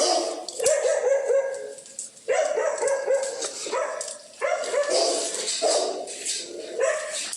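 Dogs barking angrily in rapid volleys of several barks a second, with brief pauses between the volleys.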